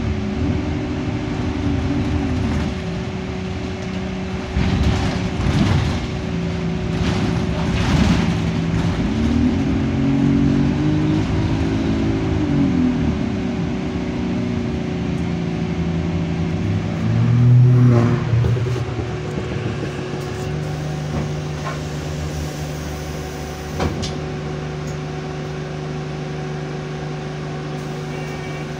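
Alexander Dennis Enviro200 bus heard from inside: its Euro 5 diesel engine, driven through an Allison automatic gearbox, rises and falls in pitch as the bus accelerates and shifts. About two-thirds of the way through it swells, then settles to a steady idle, with a constant whine underneath throughout. The uploader says the gearbox is in limp mode with no kickdown.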